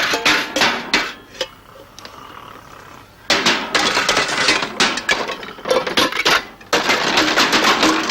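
Rapid clattering and banging, many hard strikes a second. One run comes at the start, then a quieter spell of about two seconds, then a longer run from about three seconds in with a brief break near the end.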